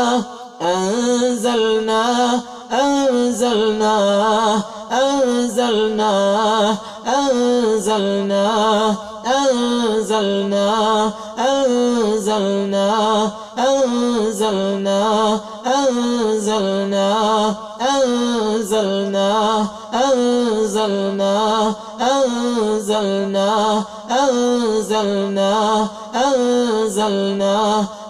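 A man chanting Quranic ruqyah recitation, repeating one short melodic phrase over and over, about one phrase every two seconds with a brief breath gap between each.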